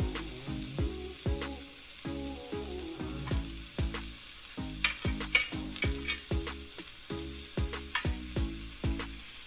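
Tempeh slices sizzling on a hot ridged grill pan while metal tongs click and scrape against the pan as pieces are lifted off. Background music with a steady beat runs underneath.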